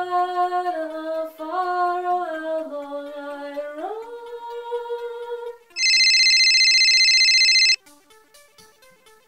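A woman singing a slow tune on her own, her voice stepping between held notes, for about five seconds; then a mobile phone ringing loudly with an electronic trill for about two seconds. Faint plucked guitar music follows near the end.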